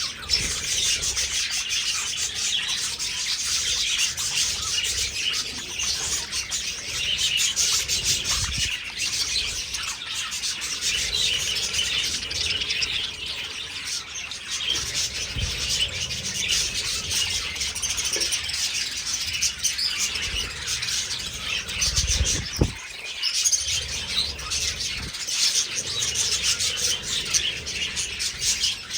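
A flock of budgerigars chattering and chirping continuously, many birds at once. A few low rumbles come and go underneath.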